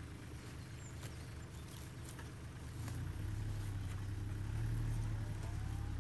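Gloved hands working loose soil around a sweet potato slip in a hole in black plastic mulch: faint rustles and light crackles. Under them runs a low steady rumble that grows louder about three seconds in.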